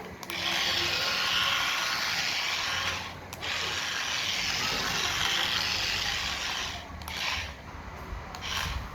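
Small electric motor and plastic gears of a toy remote-control car whirring in bursts: two long runs of about three seconds each with a brief break between them, then two short spurts near the end.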